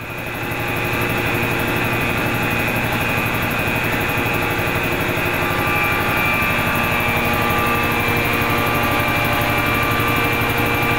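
Rotary claw vacuum blowers of a soil vapor extraction system running inside their enclosure. It is a loud, steady machine drone of about 100 dBA with several high steady whining tones over it, fading in over the first second.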